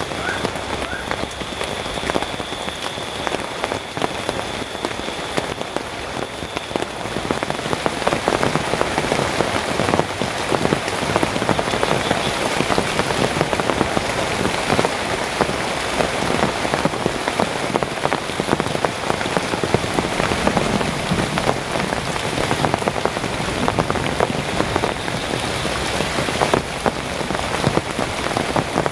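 Heavy tropical rain falling steadily, a dense patter of drops that grows heavier about seven seconds in.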